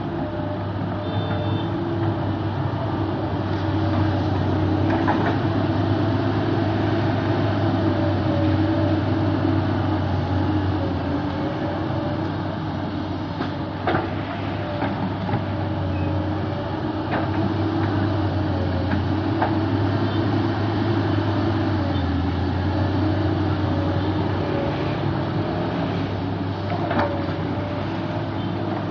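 Hydraulic excavator's diesel engine running steadily, its pitch drifting slightly as the machine works, with a few sharp knocks.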